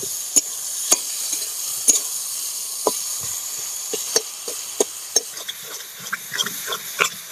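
Flat metal spatula scraping and knocking against a metal karahi as fried brinjal is stirred and mashed in hot oil, over a steady sizzle. The strokes come faster, about three a second, in the last couple of seconds.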